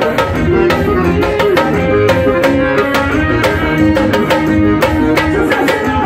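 Loud forró music with a fast, steady drum beat under a keyboard melody, played live over a PA system.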